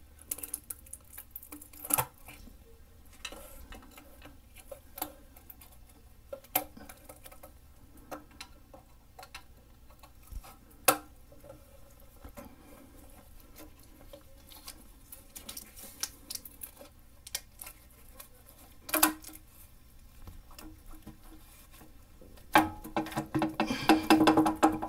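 Scattered light clicks, taps and a few sharper knocks of a timing cover being pried and worked loose from a V8 engine block, with a louder, busier run of handling sounds near the end as the cover comes away.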